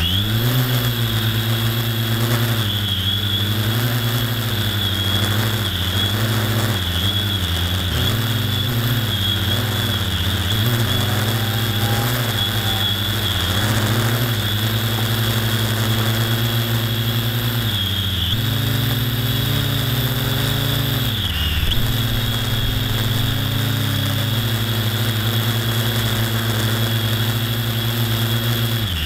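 Electric motor and propeller of a radio-controlled model aircraft, heard from a camera on board: a steady motor hum with a high whine above it, its pitch wavering as the throttle changes, with a brief dip about 21 seconds in.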